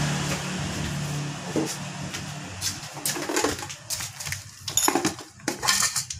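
A motor vehicle's engine hum fading away during the first second, then scattered light clicks and knocks, with a bird calling.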